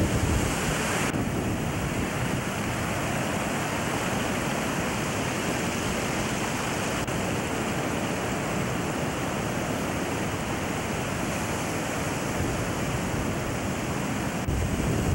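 Hurricane-force wind and storm-surge waves washing over the shore: a steady rush of wind and surf, with wind noise on the microphone. The sound shifts abruptly about a second in and again near the end.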